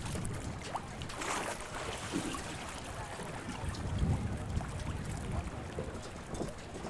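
Outdoor wind buffeting the camcorder microphone over open water, a steady rushing hiss with low rumbling gusts, the strongest about four seconds in. Faint distant voices come through now and then.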